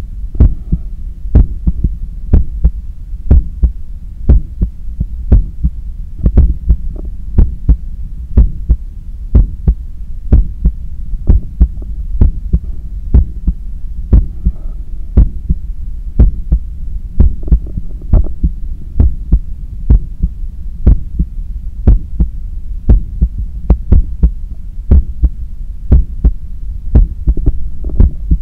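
Human heart heard through a stethoscope: strong, regular beats in a steady rhythm over a continuous low hum. It is an athlete's heart recovering just after a 10 km run.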